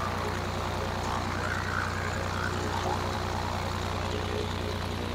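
Turbocharged Lycoming piston engine of a light aircraft running steadily with its propeller turning.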